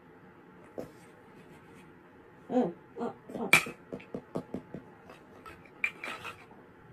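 A person's mouth noises voicing pretend eating: a couple of short grunts, then a quick run of chomping sounds about five a second, and a few more near the end.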